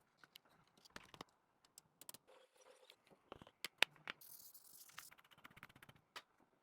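Small clicks, taps and scrapes of repair tools and phone parts being handled on an iPhone 15 Pro Max. The sharpest click comes a little under four seconds in, followed by a short tearing hiss.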